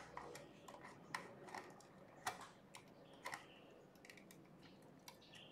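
Faint, irregular clicks and taps of wires and small plastic parts being handled and pushed into the terminals of a relay control board.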